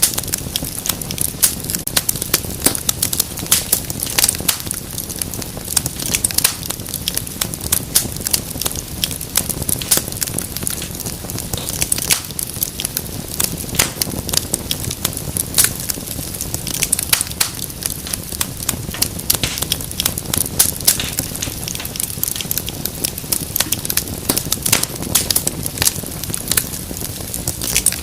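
Wood fire burning in a fireplace, crackling steadily with dense, irregular pops over a low rumble.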